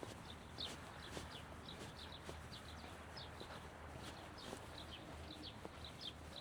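Small birds chirping, short high falling chirps repeating a few times a second, over a low rumble, with faint clicks of footsteps from someone walking.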